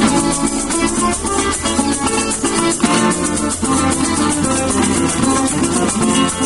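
Venezuelan llanero folk music in joropo style: plucked string instruments playing with maracas shaking a fast, even rhythm.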